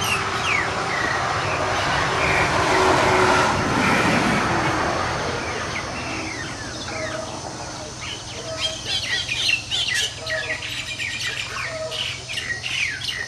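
A broad rushing noise swells and fades over the first half, then birds chirp rapidly, a dense series of short falling chirps.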